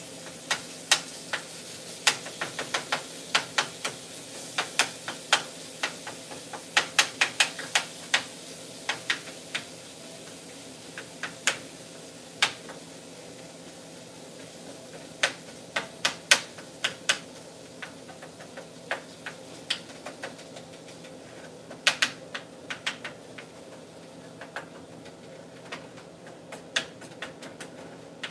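A cooking utensil clacking and tapping against a frying pan in irregular clusters as ground beef is chopped up while it fries, over a steady sizzle. The taps come thick in the first half and thin out later.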